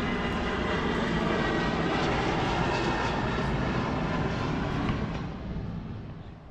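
Boat engine running steadily under way, with a loud rush of wind and water. It dies down over about the last second and a half.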